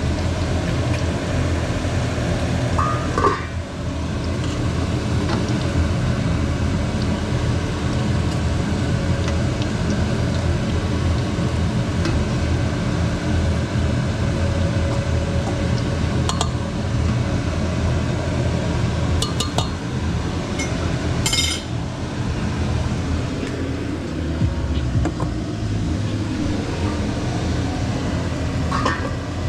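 Eggs frying in a pan with a steady sizzle, broken by a few sharp clinks of a utensil against the pan or a dish.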